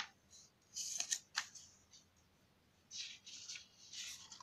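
Paper pages of a notebook rustling as they are handled and turned, in several short bursts, the last and loudest near the end.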